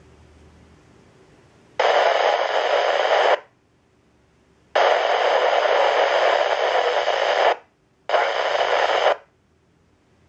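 Handheld radio scanner's squelch opening three times, each time giving a burst of loud static hiss with no voice coming through. The bursts last about a second and a half, three seconds and one second, and each cuts off abruptly.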